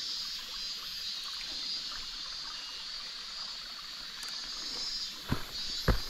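Steady outdoor background hiss, with two footsteps on a trail near the end.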